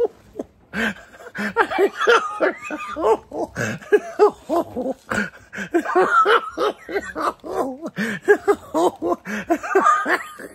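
A man laughing hard in several long fits of rapid, repeated ha-ha pulses, with short pauses for breath between them.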